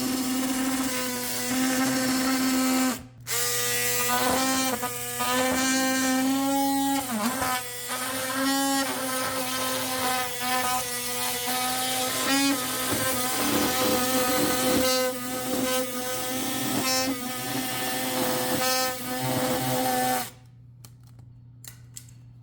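Oscillating multi-tool with a titanium saw blade running and cutting a glued-in wooden dowel flush, a steady buzz that stops briefly about three seconds in and sags in pitch now and then as the blade bites. The tool shuts off near the end.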